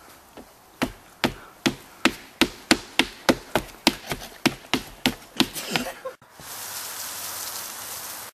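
A quick run of about fifteen sharp smacks, a hand striking a person's body, about three a second and speeding up and fading near the end. About six seconds in they stop abruptly and a steady hiss takes over.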